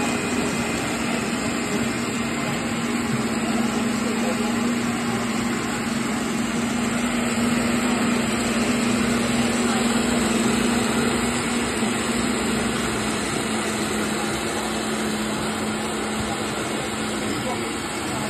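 Countertop blender motor running steadily, blending a thick kale and banana smoothie: a steady hum and whir that drops slightly in pitch about twelve seconds in.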